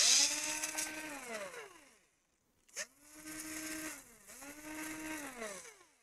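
Electric screwdriver running three times on laptop screws. Each run is a steady motor whine that sinks in pitch as the motor winds down. A sharp click comes just before the second run.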